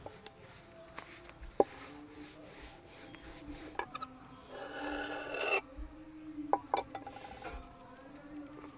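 A steel knife blade scraping and tapping on a floured marble slab as rolled samosa dough is cut, with a rough scrape about halfway through and a few sharp taps.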